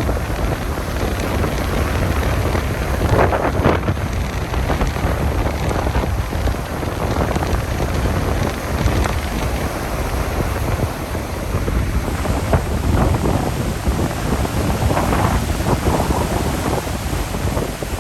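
Strong wind buffeting the microphone over the rumble of rough, storm-driven sea surf ahead of a typhoon, with louder surges about three seconds in and again around fifteen seconds.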